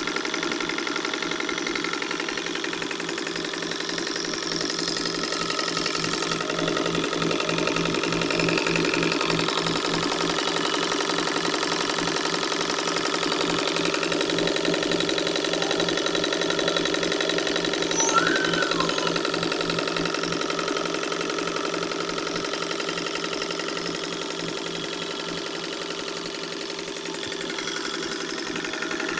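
1947 Singer electric sewing machine running steadily at speed under its foot pedal: a motor hum with a fast, even mechanical clatter from the needle mechanism.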